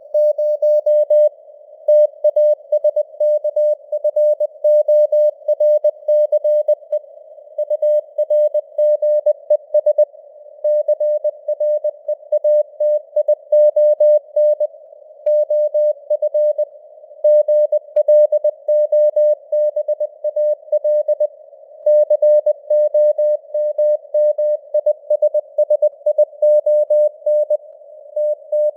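Morse code (CW) sent at 20 words per minute: a single mid-pitched beep keyed on and off in quick dots and dashes, over a narrow band of simulated radio receiver hiss, with the signal strength rising and falling slightly (QSB).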